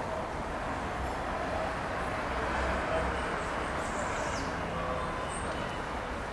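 Steady city street noise: a continuous low rumble of traffic with no distinct events.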